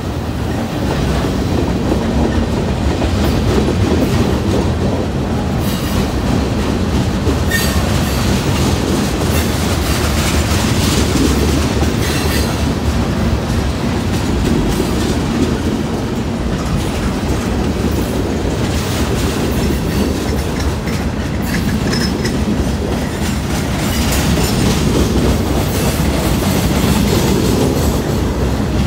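Freight cars of a Norfolk Southern mixed freight train rolling past close by: a steady rumble and clatter of wheels over the rails, with a few brief high wheel squeals.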